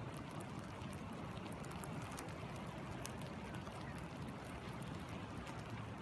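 Light rain falling on water, the single drops heard as scattered soft ticks, over the steady rush of a flowing river.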